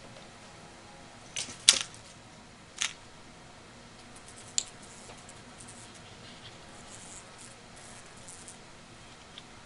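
A few sharp clicks and knocks, the loudest about two seconds in, followed by faint light scratching and rustling.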